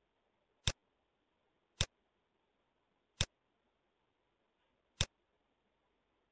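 Four single computer mouse clicks, spaced one to two seconds apart, over a faint background hiss.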